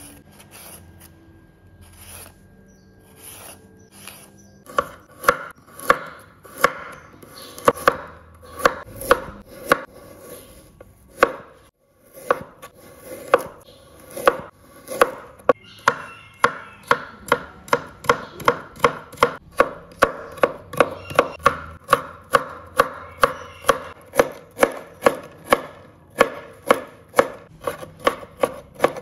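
Chef's knife chopping carrot on a wooden cutting board: regular sharp knocks of the blade on the wood, about two a second. They start about five seconds in, after a few quieter seconds, and break off briefly about twelve seconds in.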